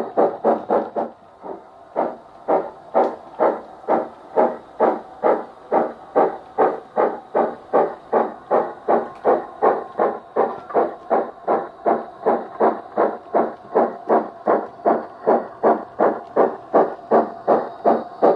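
Steam chuffs from the Wheeltappers sound file on a DCC sound decoder in a Hornby Britannia model locomotive, played through a speaker in the tender. The chuffs keep a steady beat of about two and a half a second, with a brief lull about a second in.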